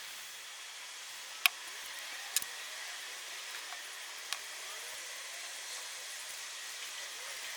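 Steady hiss with three sharp clicks in the first half, the loudest about a second and a half in.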